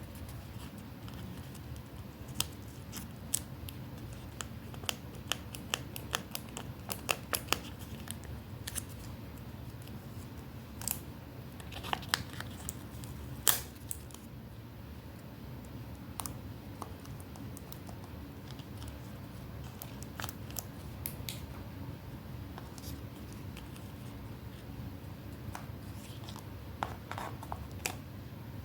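Scissors snipping paper: irregular runs of short, sharp clicks with pauses between them, over a steady low hum.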